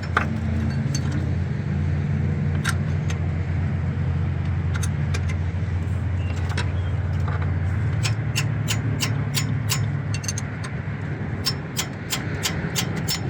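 Starter mounting bolts being tightened with a wrench: a run of sharp metallic clicks, two or three a second, through the second half. A steady low hum runs underneath.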